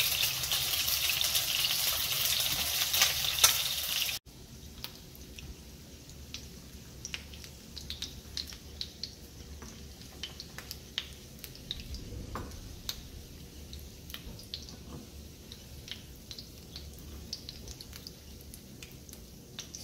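Chicken wings frying in hot oil in a pan: a loud, dense sizzle for about four seconds, which cuts off abruptly and gives way to quieter, scattered crackling.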